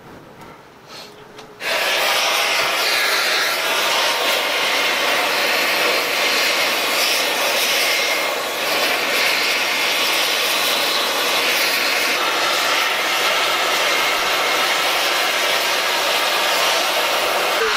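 Oxy-fuel torch flame coming on about two seconds in and then running with a loud, steady hiss as it heats a corner of a welded steel bracket to straighten a warp out of it.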